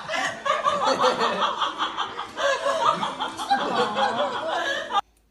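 People laughing in quick repeated chuckles and giggles, cutting off suddenly near the end.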